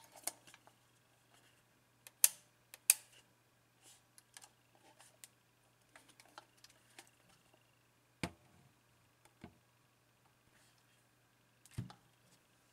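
Kiev 60 medium-format SLR camera body being handled and turned over in the hands: scattered light clicks and knocks, with two sharper clicks about two seconds in and two duller knocks later on.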